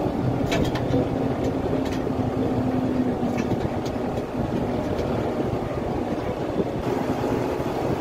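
New Holland tractor's diesel engine running steadily, heard from inside the cab, with a few light clicks and rattles in the first four seconds.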